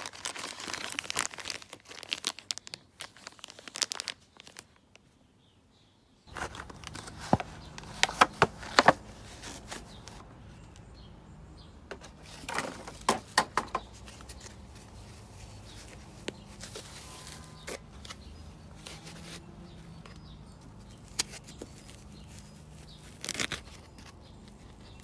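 Packaging crinkling and tearing as a new replacement part is unwrapped by hand, in irregular bursts of crackles and clicks with a short pause about five seconds in. A faint steady low hum sits under the later part.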